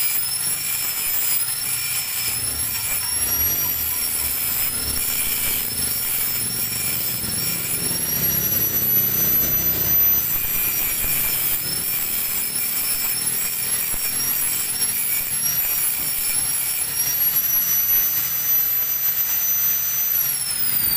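A steady high whine over a hiss-like noise, its pitch wavering slightly and then sliding down just before the end.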